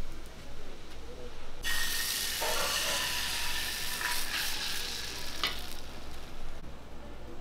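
Crepe batter sizzling in a hot nonstick frying pan as it is poured in and swirled. The sizzle starts suddenly about a second and a half in and dies away about two seconds before the end, with a few light clinks of ladle and pan.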